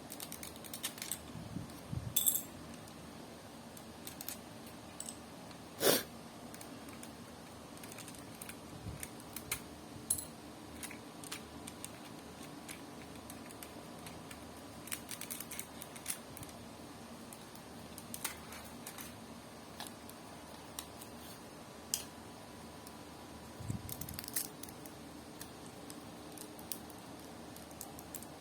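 Plastic Lego pieces being handled and clicked together: scattered light clicks and rattles, with a sharper knock about six seconds in.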